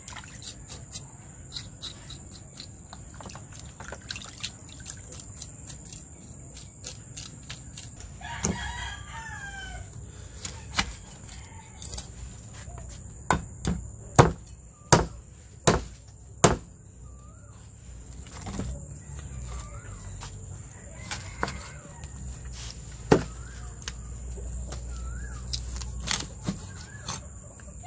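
A knife scraping the charred skin of a pig's trotter in a bucket of water, with a rooster crowing about eight seconds in. Then a cleaver chops the trotter on a wooden board with a handful of loud, sharp strikes, and chickens cluck now and then afterwards.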